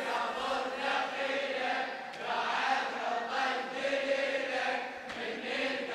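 A crowd of mourners chanting together in a Shia mourning chant (latmiyya), many voices at once, softer than the lead reciter's amplified voice.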